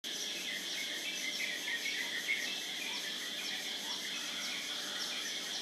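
Early-morning outdoor chorus: a steady high insect drone with many birds chirping over it in quick, short calls.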